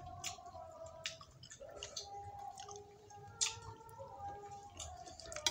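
A kitten chewing food, with irregular sharp clicks and wet crunches as it bites. A faint steady tone runs underneath.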